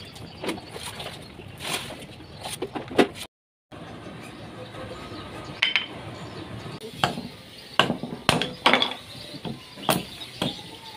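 A steel sickle blade, cut from a motorcycle brake disc, knocking and scraping against a brick and a wooden stump: a string of sharp clinks and knocks, several with a short metallic ring, coming thicker in the second half.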